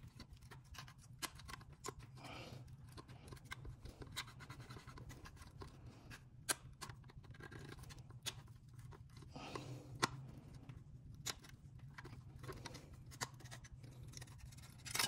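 A small screwdriver clicks and scrapes against the rusty metal adjuster hardware of a 1985 Chevrolet S-10 headlight bucket as it is taken apart, in scattered light taps with a few sharper clicks. A low steady hum runs underneath.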